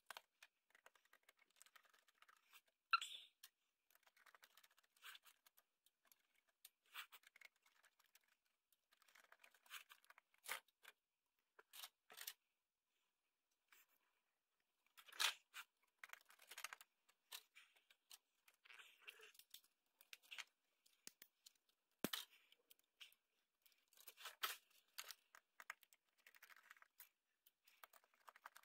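Faint handling noise of small metal and plastic computer parts being pried apart and fiddled with by hand: scattered light clicks and scrapes, with a sharper click about three seconds in and another just past the twenty-second mark.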